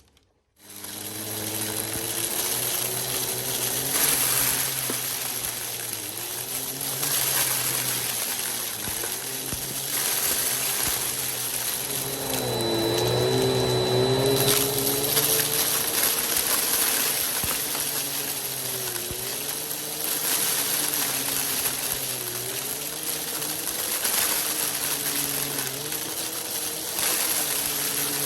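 Vacuum cleaner with a spinning brushroll running and picking up dry rice, macaroni and beans, the hard pieces rattling and clicking through it. The motor's pitch dips and recovers again and again as it is pushed across the mess, and the sound comes up from near silence in the first second.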